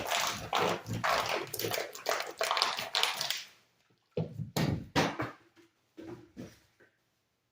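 Sheets of Simple Mat adhesive tile-setting mat being handled and rubbed down by hand: irregular rustling and rubbing strokes that stop about three and a half seconds in, then a few sharper rustles and handling noises.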